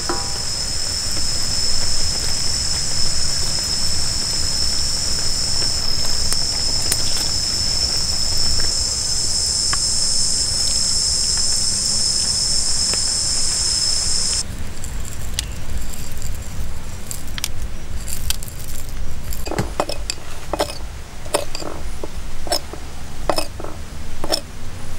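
Insects drone steadily at a high pitch, cutting off suddenly a little over halfway through. Near the end comes a run of sharp clinks and taps.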